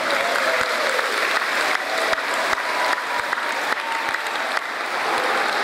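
Audience applauding: many hands clapping together.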